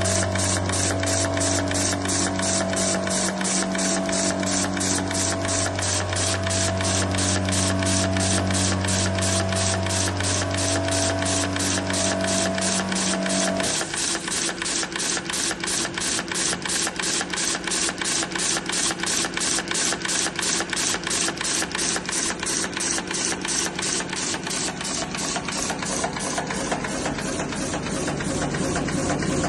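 Curb chain making machine running, with an even, rapid clacking of about three strokes a second over a steady motor hum. The hum's pitch changes about halfway through.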